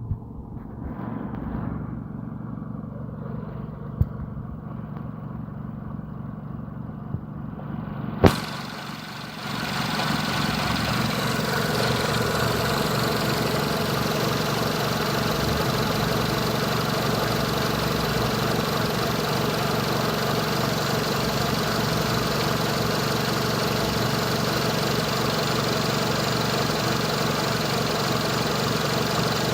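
Renault Megane 2 1.6-litre 16-valve four-cylinder petrol engine idling, with the misfire-like shaking the owner describes though no fault code is stored. It is muffled at first, with a sharp click about eight seconds in, then louder and fuller and steady from about ten seconds on.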